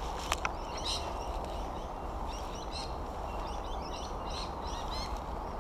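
Small birds chirping in short, repeated calls over a steady low background rumble, with two sharp clicks about a third of a second in.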